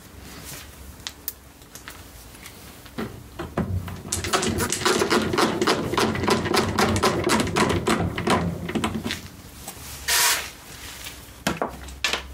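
Clatter of small hard objects being handled: a dense run of rapid clicks and rattles lasting several seconds, then a short burst of hiss and a few sharp knocks near the end.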